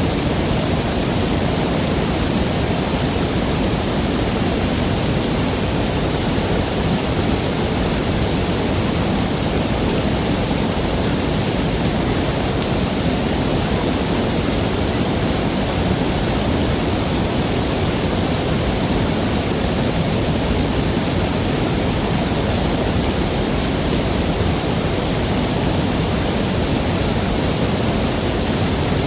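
Waterfall: falling water rushing in a steady, dense, unchanging noise.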